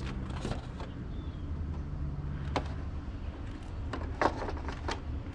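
Handling noise: a few light clicks and knocks as objects are picked up and moved, the sharpest about four seconds in, over a steady low hum.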